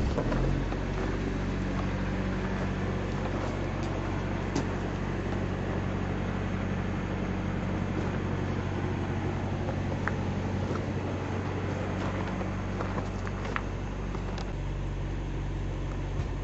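Diesel engine of an old conventional dump truck catching right at the start and settling into a steady, even idle.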